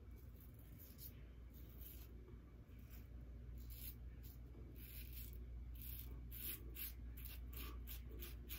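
Double-edge safety razor scraping through lathered stubble in a series of short, faint strokes, coming more quickly in the second half.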